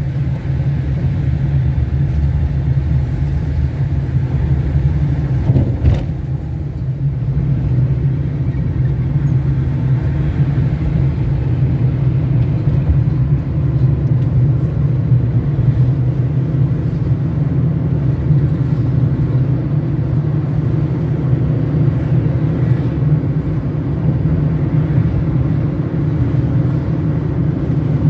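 Steady low rumble of a moving car's engine and tyres on the road, with a single short knock about six seconds in.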